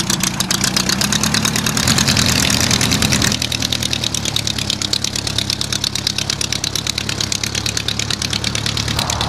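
Midget Mustang light aircraft's piston engine running at low taxi power, a fast, even stream of firing pulses. It is quieter from about three seconds in.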